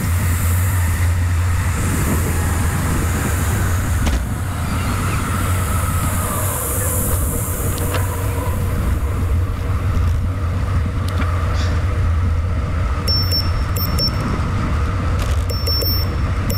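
Wind rushing over the microphone of a camera on a moving bicycle, with a steady low rumble throughout.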